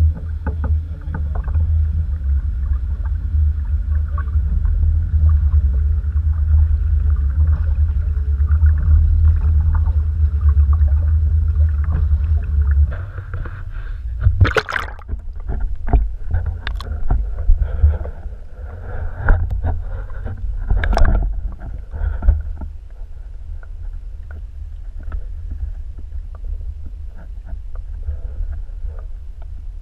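Steady low rumbling noise aboard a canoe on the water. It drops away about halfway through, and then come a handful of sharp knocks, the sound of gear or a paddle striking the canoe.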